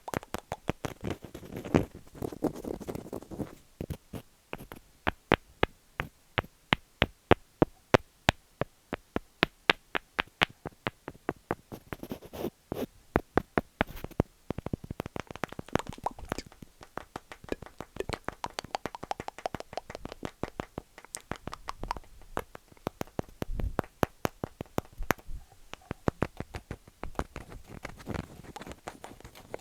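Wood tapped in quick runs of sharp clicks, several a second, between stretches of scratching on wood.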